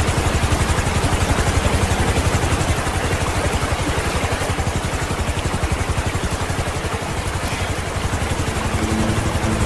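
Helicopter running, its rotor making a fast, even chopping pulse over a low engine hum.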